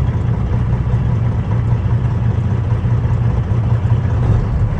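Semi truck's diesel engine running steadily, heard from inside the cab as an even low drone.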